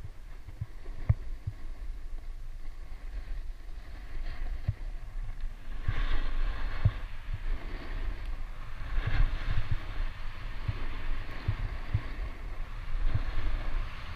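Wind buffeting the microphone of a camera worn by a skier going downhill, a low rumble with frequent thumps. Under it, skis hiss and scrape over the packed snow, louder twice during turns.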